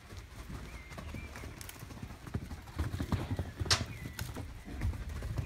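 Horse hooves thudding on a sand arena floor as the horse trots and canters, the hoofbeats growing louder about halfway through. A short sharp hiss, like a snort, comes near the end.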